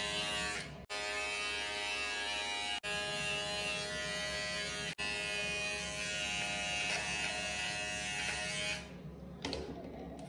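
Electric hair trimmer running with a steady buzz as it trims hair, broken by a few very brief gaps. It stops about nine seconds in.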